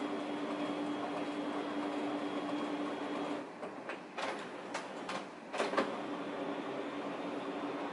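Brother MFC-L3770CDW colour laser printer running its automatic colour calibration: a steady hum with a constant whine that stops about three and a half seconds in. A run of clicks and knocks follows as the cycle ends and the calibration completes.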